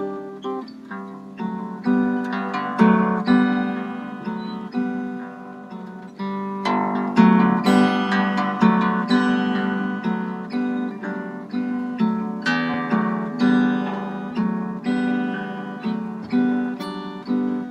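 Solo harp guitar played fingerstyle: a steady run of plucked, ringing notes on the guitar neck, getting louder and fuller about seven seconds in.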